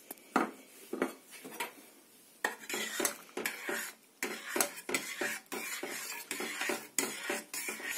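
A metal spoon stirring sugar into milk in a stainless steel pot, clinking and scraping against the pot's sides and bottom, starting about two and a half seconds in. A few separate light clinks come first.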